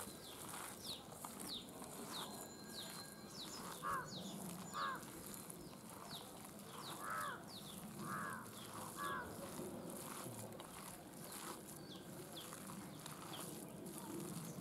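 Outdoor ambience with birds calling: a scatter of short, high, falling chirps through the first half, and about five louder, lower calls between about four and nine seconds in.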